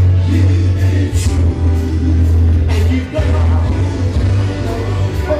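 Loud music with a singing voice over a heavy bass line, with a few sharp drum hits; the bass drops out briefly about three seconds in.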